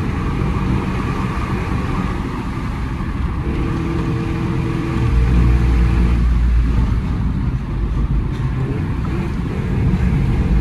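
Renault Clio Mk2 engine running while the car is driven, with road noise; it gets louder about five seconds in, as if under harder throttle, then eases back.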